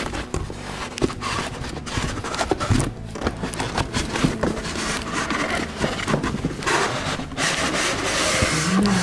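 Packing being lifted and pulled out of a cardboard box: continuous rubbing and scraping, broken by many small knocks, with heavier scraping in the second half.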